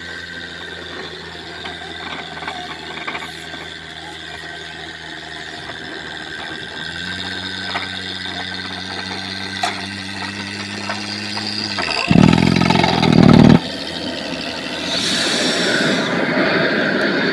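Engine running steadily, stepping up to a higher, louder pitch about seven seconds in. Near the middle comes a loud rush lasting a second and a half, then a hissing blast near the end.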